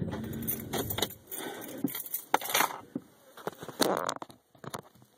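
Irregular clicking and rustling handling noises, with a low engine rumble that dies away about a second in.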